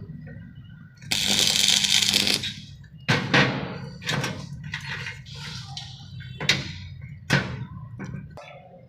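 A short burst of crackling hiss from a stick-welding arc, about a second and a half long, followed by about six sharp metal knocks and clanks that ring briefly, as steel frame pieces are struck and handled.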